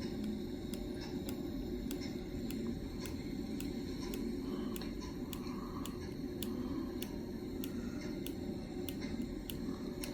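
Ceiling fan running on low speed: a steady motor hum with a light, regular tick about two to three times a second.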